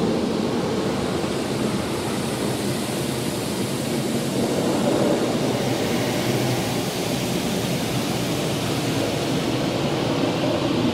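Water spraying onto a car's body and glass in a Christ Varius automatic car wash, heard from inside the closed cabin: a steady hiss of spray and running water.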